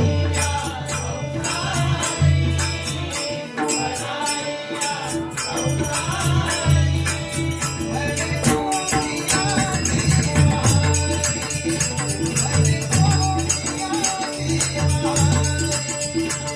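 Devotional Marathi bhajan: a group chanting a repeated gajar refrain to a steady clash of taal hand cymbals, with deep drum beats underneath.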